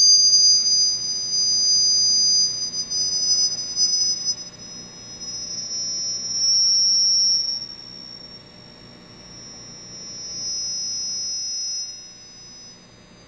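Square Chladni plate driven at its centre by a vibration generator, giving out a high-pitched whistling tone as the sand forms standing-wave patterns. Two close high tones slide toward each other, meet about six seconds in and then move apart, growing louder and softer as the driving frequency changes and the plate passes through its resonances.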